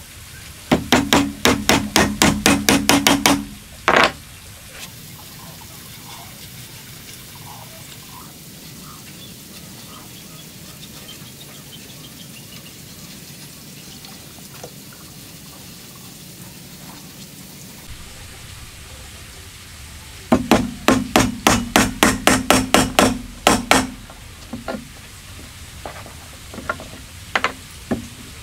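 Hammer driving nails into a wooden plank: two quick runs of about seven ringing blows a second, each lasting around three seconds, with a single harder blow after the first run and a few scattered knocks near the end. Between the runs there is a long quiet stretch.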